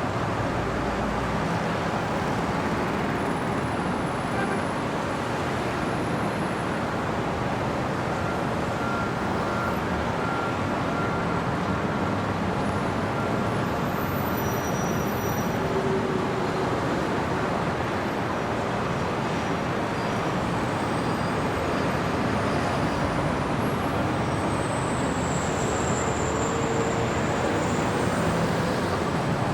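Steady city street traffic: a continuous wash of passing cars and heavier vehicles, with a faint high squeal briefly near the end.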